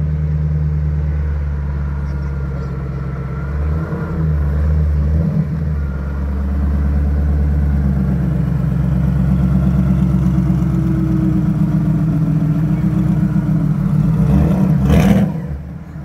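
A modified Ford Mustang's engine running loudly at low speed as the car rolls slowly up, with one short, sharp rev near the end.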